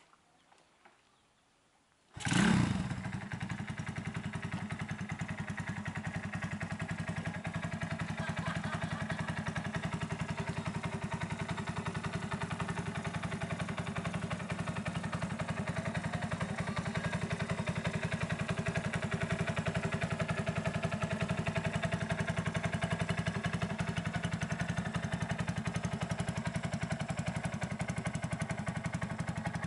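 A Honda underbone motorcycle's single-cylinder four-stroke engine kick-started: it catches about two seconds in with a brief rev, then settles into a steady, evenly pulsing idle.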